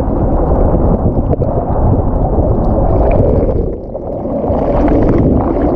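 Muffled underwater rush and gurgle of churning water and bubbles, heard through a submerged camera, with a short dip in level just before four seconds in.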